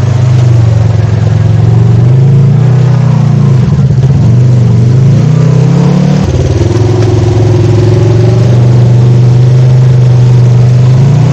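Polaris RZR side-by-side engine running under throttle on a trail. Its pitch climbs over a few seconds, drops abruptly about six seconds in, then holds steady.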